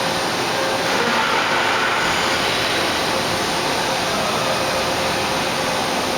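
Spindle of a Fadal VMC5020A CNC vertical machining center (15 HP, CAT 40) running steadily at high speed, a steady mechanical whine over noise.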